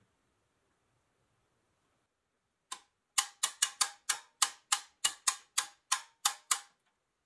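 About a dozen sharp metallic clicks, roughly three a second, each ringing briefly, from a pressed-steel toy tow truck's boom and hook mechanism being worked by hand.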